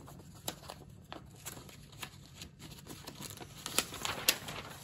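A sheet of paper being handled, rustling with scattered sharp crackles and taps that grow busier after about three seconds. A faint steady low tone runs underneath.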